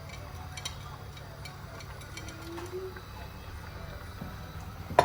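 Low steady background hum with a few faint clicks, then a sharp clank of cookware right at the end.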